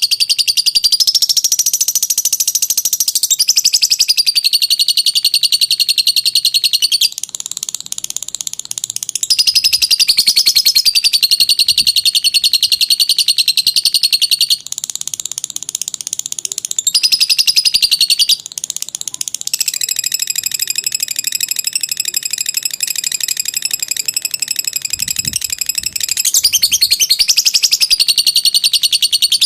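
Lovebird singing its long 'ngekek' chatter: a high, very rapid trill held for several seconds at a time. The phrases are broken by a few short pauses.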